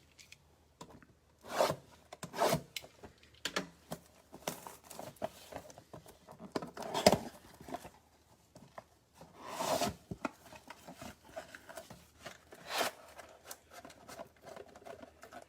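Trading-card box and foil packs being handled and opened: irregular rustling, rubbing and tearing of cardboard and wrappers, with a few sharper rips.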